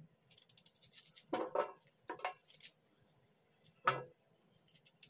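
A serrated knife slicing crisp pieces off a peeled raw green mango in a few short, separate strokes, with a sharp knock on the steel plate about four seconds in.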